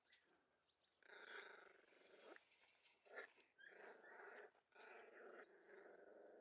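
Three-week-old Texas Heeler puppies growling faintly as they play-fight, in several long stretches from about a second in.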